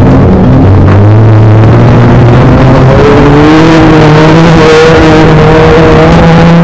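Front-wheel-drive dirt rod race car's engine heard from inside the cockpit, running hard under acceleration, very loud throughout. Its pitch climbs about three seconds in and then holds high.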